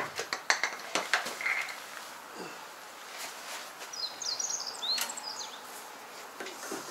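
A few knocks and clicks in the first second or so as a plastic fuel jerrycan is set down and a fuel hose handled, then quieter handling. Birds chirp briefly about four to five seconds in.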